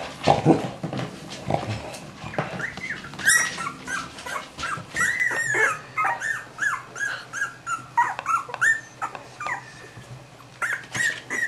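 Cavalier King Charles Spaniel whimpering: a run of short, high whines that rise and fall, two or three a second, breaking off briefly near the end before a few more.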